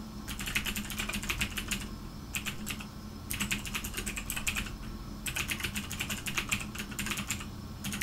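Typing on a computer keyboard: quick runs of keystrokes broken by short pauses, over a faint steady low hum.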